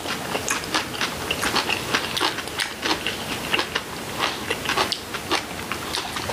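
Two people chewing crunchy seasoned vegetable side dishes: a dense, irregular run of crisp crunches and wet mouth clicks.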